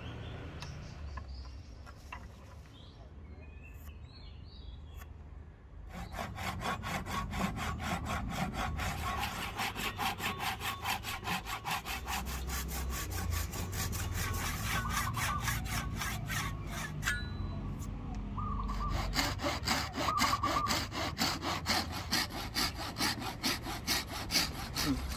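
A double-edged Japanese pull saw cutting across the end of a padauk hardwood hatchet handle in quick, regular back-and-forth strokes. The sawing starts about six seconds in, stops briefly about two-thirds of the way through, then resumes.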